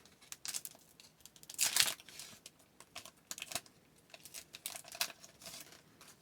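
A 2020-21 SP Authentic hockey card pack's wrapper crinkling and tearing as it is opened by hand, in irregular rustles, the loudest at about a second and a half in, with the cards shuffling against the wrapper.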